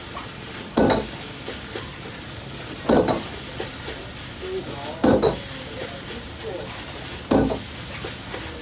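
Fried rice sizzling in a wok over a gas burner, with a steady hiss, while a metal ladle strikes the wok in sharp clanks four times, about every two seconds, as the rice is stirred and tossed.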